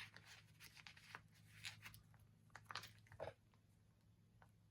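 Faint rustles and small taps of paper stickers and a planner page being handled and pressed down, over a low steady hum.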